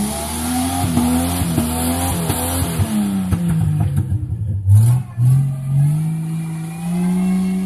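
Jeep Wrangler engine revving hard with its wheels spinning in slick clay mud. The revs drop about three seconds in, break off briefly, then climb again and hold. Scattered knocks come through in the first three seconds.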